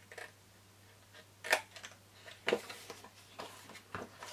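Scissors cutting through cardstock: about five short, sharp snips, roughly a second apart.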